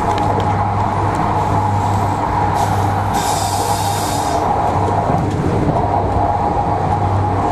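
Moving passenger train heard from inside the carriage: steady running noise with a constant low hum and wheel-on-rail rumble. A brief hiss rises over it about three seconds in and fades after a little over a second.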